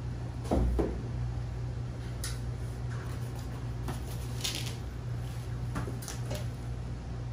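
Handling noise of a large nylon RC hauler bag with plastic inner boxes being pulled up and lifted: scattered light knocks and scuffs, with a brief rustle about four and a half seconds in, over a steady low hum.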